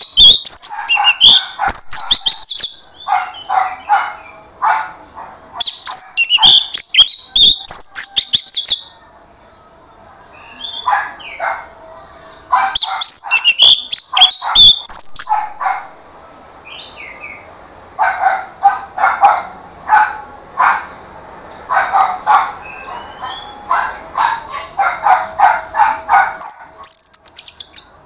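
Orange-headed thrush singing in loud bursts: fast, high, varied song phrases alternating with runs of lower, harsh repeated notes, with brief lulls between bouts.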